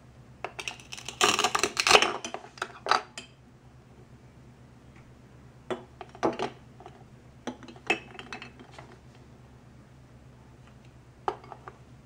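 Toy pear's velcro halves ripping apart under a plastic toy knife: a crackly rip lasting about two seconds near the start, then a few separate plastic clicks and knocks as the pieces are handled.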